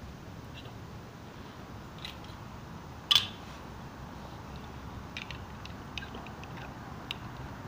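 Plastic Lego pieces clicking as they are picked up and handled, with one sharp click about three seconds in and a few lighter clicks later.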